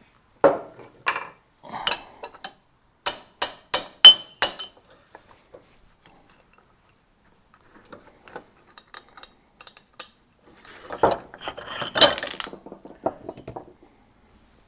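Hammer striking a steel pin punch to drive the axle shaft out of a trailer jockey wheel's hub: about ten sharp metal-on-metal blows, quickening and ringing over the first four seconds or so. Later, a burst of metal clattering as the loosened parts are handled.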